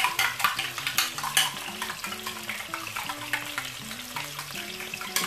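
Fork beating eggs in a glass bowl: quick clicks of metal on glass, busiest in the first second or so, over a light sizzle of red bell pepper frying in oil in the pan.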